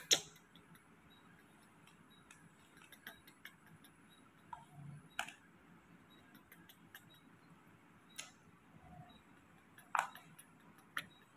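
Quiet room with a few scattered sharp clicks and light taps, about five in all, the loudest right at the start and about ten seconds in.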